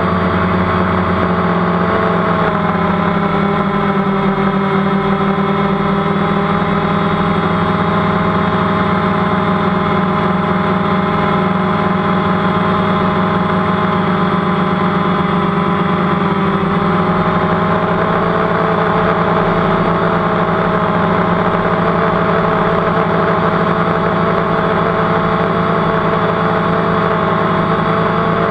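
DJI Phantom quadcopter's electric motors and propellers whining steadily, heard close from the camera on board while the drone hovers high up. The pitch shifts slightly a couple of times as the motors adjust their speed.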